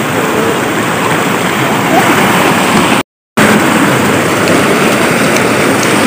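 Water pouring steadily over the lip of a shallow weir, with children's legs splashing in the flow. The sound cuts out completely for a moment a little after three seconds in.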